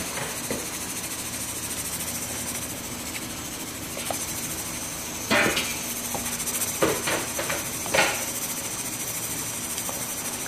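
A wooden spatula stirring vegetables and pasta in soup in a nonstick pan, knocking against the pan a few times about halfway through, over a steady hiss.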